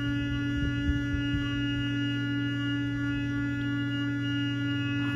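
Small phone-type vibration motor on a plastic gold-finishing table, running with a steady buzzing hum, with faint swishes of a brush in the shallow water on the table.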